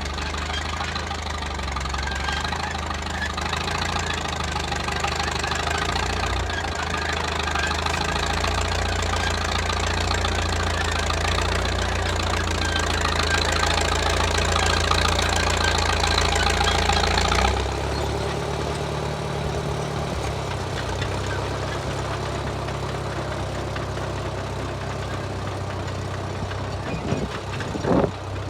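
1934 Caterpillar crawler bulldozer's engine running steadily, working hard. About two-thirds of the way through it is throttled back and runs lower and quieter. A brief sharp sound comes just before the end.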